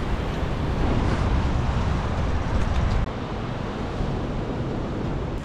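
Wind rumbling on an outdoor camera microphone over the wash of surf on a pebble beach; the rumble eases about three seconds in.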